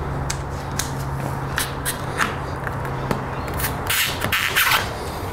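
Utility knife cutting notches into a corner of Diamond Deck non-slip decking sheet: scattered small ticks and scrapes of the blade, with a louder scraping run about four seconds in.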